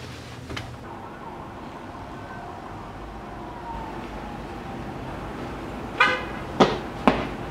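Outdoor traffic sound: a faint siren slides slowly in pitch in the first few seconds. About six seconds in a car horn gives a short toot, followed by two sharp, loud sounds in quick succession.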